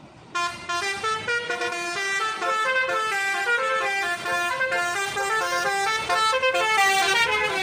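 Bus telolet horn playing a fast musical tune, several notes sounding together and stepping up and down in quick succession, starting abruptly about a third of a second in.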